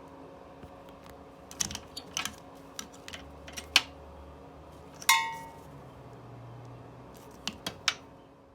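Small metal parts and tools being handled while fitting motorcycle fan hardware: a string of sharp clicks and knocks, with one ringing metallic clink about five seconds in, over a faint steady hum.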